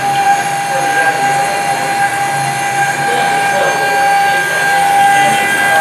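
Spindle of a small 5-axis CNC milling machine running with a steady whine while a fine engraving bit cuts into a wooden pipe bowl, with the scratchy noise of the cutting under it.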